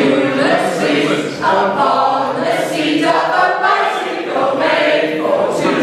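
A group of people singing together unaccompanied, many voices at once.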